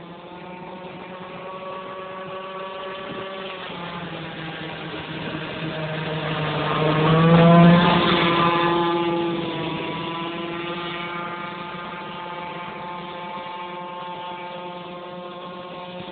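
Carbon-Kevlar Sigma RC power boat's petrol two-stroke engine running at speed with a high buzz. It grows louder as the boat closes in, passes close about halfway through with the pitch dropping as it goes by, then fades as it runs away.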